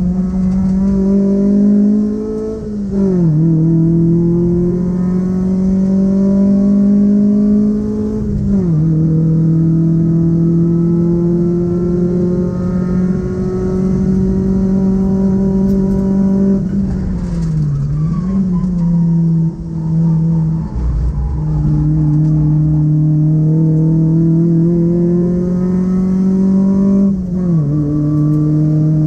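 Haima Haifuxing sedan's engine heard from inside the cabin while it laps a race track under load. The engine note climbs slowly and drops sharply several times as the driver changes gear or lifts for corners, with tyre and road noise underneath.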